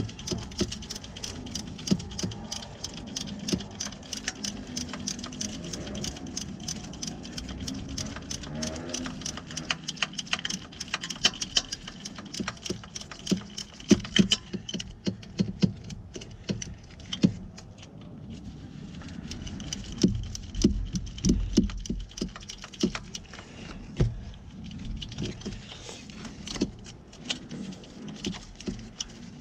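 Hand ratchet wrench clicking in long quick runs while turning starter-mounting bolts by hand, then slower, sparser clicks with a few metallic knocks about halfway through.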